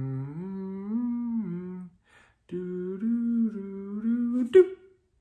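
A man humming a wandering tune, holding notes and sliding between them. He breaks off about two seconds in and resumes half a second later. There is one sharp click near the end.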